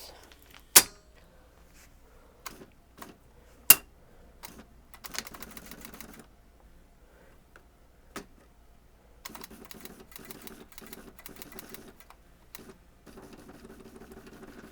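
IBM Wheelwriter 1500 electronic typewriter being worked as paper is fed in: two sharp clicks in the first four seconds, then its motorized mechanism running in stretches of a second or more, about five seconds in and again from about nine seconds on.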